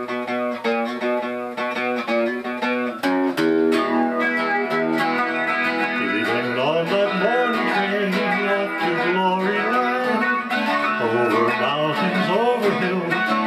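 Guitar-led instrumental intro played on a hollow-body electric guitar, chords with a bass line entering about three seconds in. From about six seconds a lead melody with bending, sliding notes plays over the chords.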